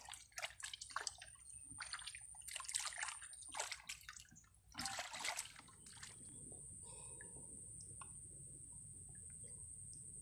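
Irregular sloshing and splashing of shallow river water as sweet potatoes are washed by hand, for about six seconds; then it drops to a faint steady background with a thin high whine.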